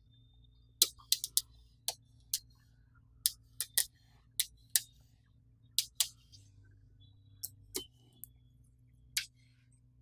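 Small magnetic balls clicking sharply as they are snapped into place one at a time on a magnetic-ball model, in an irregular run of single clicks, sometimes two or three in quick succession.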